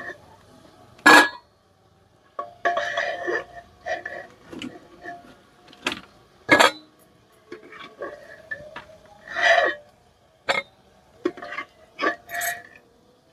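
Steel ladle clinking against the rim and sides of an aluminium pressure cooker as fried potatoes are scooped out. There are several sharp, separate clinks at irregular intervals.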